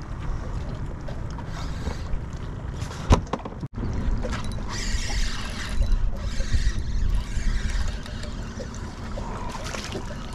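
Water lapping and sloshing against the hull of a small skiff, with a steady wind rumble on the microphone. A single sharp knock about three seconds in, and brief hissy splashes a little after the middle.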